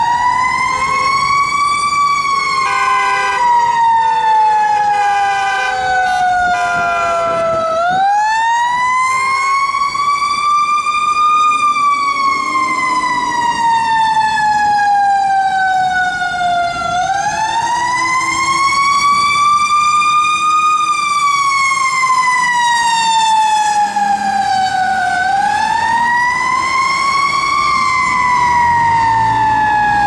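Fire engine siren wailing: the pitch climbs quickly to a peak and then falls away slowly, about every eight or nine seconds. In the first few seconds it is joined by short, repeated blasts of a horn.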